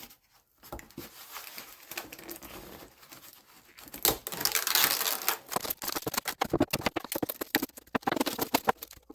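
Plastic covering film on a model airplane's tail crinkling and tearing as it is pulled and peeled off. It is faint at first, then from about four seconds in becomes a louder, dense run of crackles.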